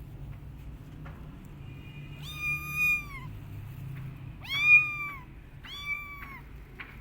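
A kitten meowing three times, high-pitched: one long meow, then two shorter ones a moment apart, the middle one loudest, each dropping in pitch at the end. It is the crying of an upset kitten.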